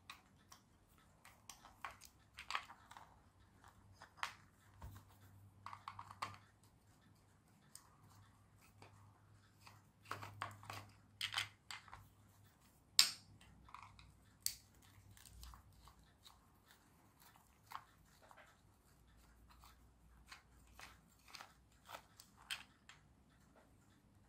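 Faint, irregular clicks and scrapes of a small screwdriver working screws out of a plastic toy truck chassis, with the plastic creaking as it is handled; one sharper click about halfway through.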